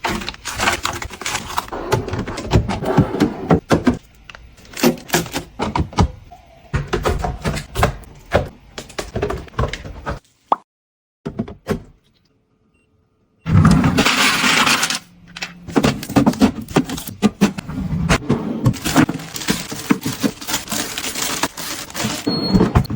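Hard household items being handled and set down: a busy string of clicks, clinks, taps and scrapes. It cuts to silence for a few seconds about halfway through, then picks up again with a noisier stretch of rustling and knocks.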